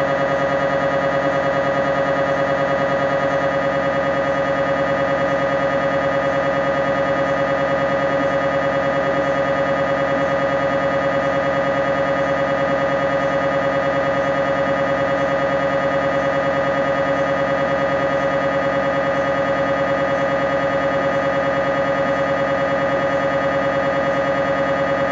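MRI scanner buzzing steadily while a scan sequence runs: the gradient coils pulsing rapidly, giving an unchanging electronic buzz at one fixed pitch.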